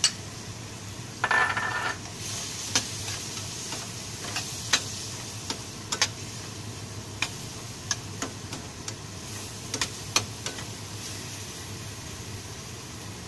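Chopped onion and sliced button mushrooms sizzling in a metal frying pan, stirred with a wooden spatula that knocks and scrapes against the pan at irregular intervals. The knocks thin out near the end, leaving the steady sizzle.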